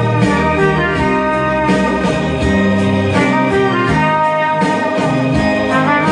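Trumpet playing a melody in held notes over a musical accompaniment with a bass line.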